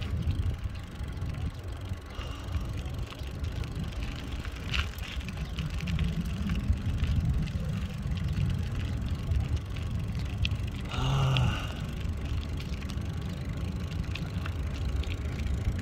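Bicycle riding along a concrete path: a steady low rumble of tyres and wind on the microphone, with scattered light clicks and rattles. A short pitched sound stands out briefly about eleven seconds in.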